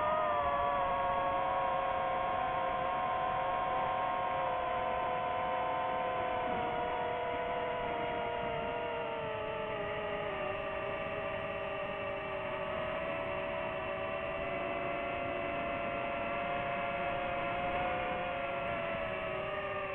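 Ambient background music: sustained droning synth tones that slowly drift lower in pitch.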